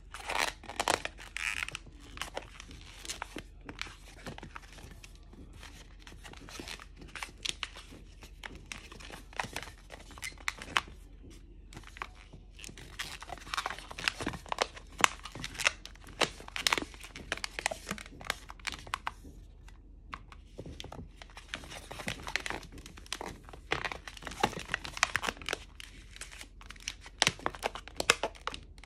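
Inflated latex modelling balloon being twisted and folded by hand: quick squeaks, creaks and rubbing of the rubber, in three spells with short lulls between them. A faint steady low hum lies underneath.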